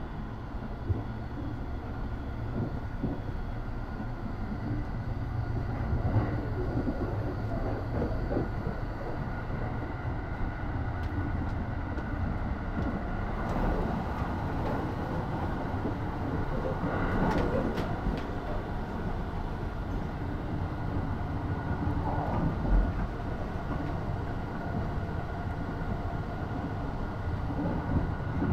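Running noise of the Sunrise Express, a 285-series electric sleeper train, heard inside a sleeper car: a steady low rumble with light rattling of the carriage.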